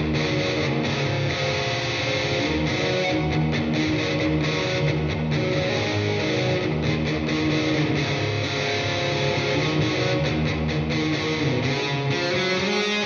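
Guitar-led instrumental music playing steadily at an even level.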